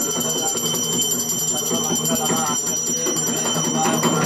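Brass puja hand bell rung rapidly and continuously, a steady high ringing, over voices or music below.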